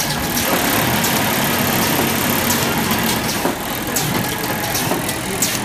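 Popcorn cup-filling production line machinery running: a steady mechanical hum with scattered sharp clicks and clatter.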